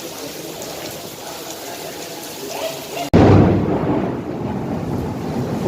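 Rain falling steadily, then about three seconds in a loud thunderclap breaks in abruptly and rumbles on, slowly fading.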